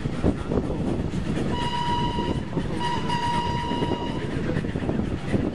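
Steam locomotive's whistle sounding twice, a short blast then a longer one, over the steady rumble and clatter of the vintage carriages running along the track.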